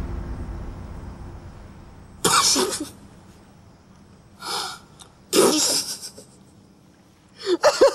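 A man stifling laughter behind his hand: sharp bursts of breath through the nose about two, four and a half and five and a half seconds in, the middle one softer, then breaking into short bursts of giggling near the end.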